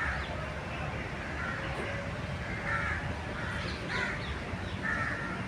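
Crows cawing: several short caws spaced a second or so apart, over a steady low outdoor background noise.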